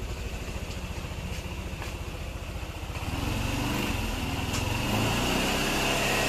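Yamaha NMAX scooter's single-cylinder four-stroke engine idling with an even, fast beat, running smoothly after its valve clearances were set: the tek-tek ticking is gone. About three seconds in it gets louder and fuller.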